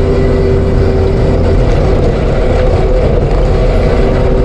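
ASV RT-120F compact track loader running a TMC Cancela forestry mulcher: steady diesel engine rumble with the mulcher drum's high tone, which weakens for a couple of seconds midway and then comes back.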